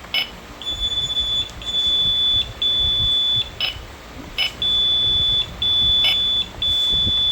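A Vision UK wireless addressable fire alarm system beeping: two runs of three high-pitched beeps, each just under a second long, with a few short chirps between them, during detector coding.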